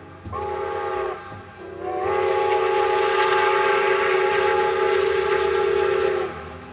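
Steam locomotive whistle blown twice: a short blast of under a second, then a longer, louder blast of about four seconds that slides up in pitch as it opens, sounding several tones at once, and cuts off near the end.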